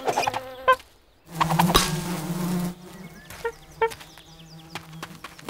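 Cartoon sound effects: a buzzing like a flying insect. A sharp hit comes under a second in, then a short gap, then the steady buzz returns, loud at first and fading, with a few short clicks and chirps over it.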